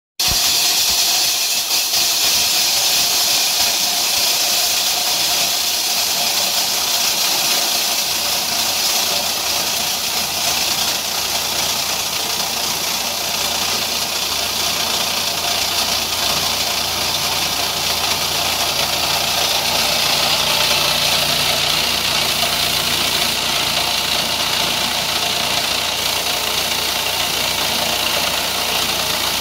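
SHARC PC400 plastic crusher running and grinding SAN and PP plastic pieces fed into its hopper: a loud, steady mechanical noise. A lower hum joins about nine seconds in.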